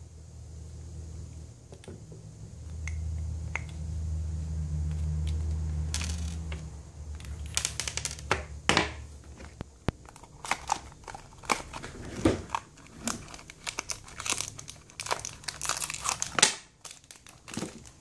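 Small plastic packet of bearings crinkling and crackling as it is handled and opened, in quick irregular crackles over the second half; a low rumble before it.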